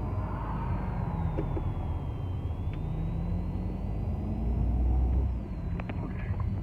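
Car engine and road rumble heard from inside a moving car, a steady low drone that swells briefly about two-thirds of the way through.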